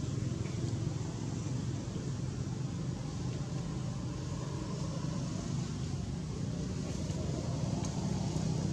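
Steady low background rumble with a faint hiss above it, unbroken throughout.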